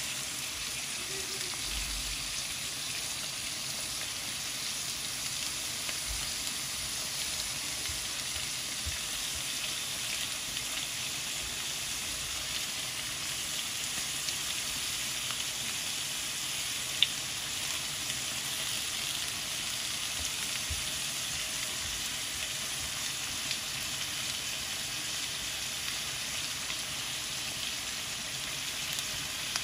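Onions frying in hot oil in a kazan for plov, a steady sizzle, with one sharp click about halfway through.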